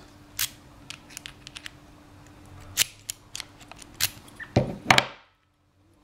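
Titan K brass padlock being locked with its key: scattered light metal clicks and ticks from the key and keyring, then two louder clacks about four and a half seconds in.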